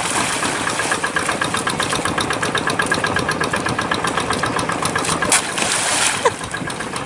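Single-cylinder Kubota RD85 diesel of a hand tractor running steadily, with a rapid, even knock. A brief splashing burst comes about five seconds in.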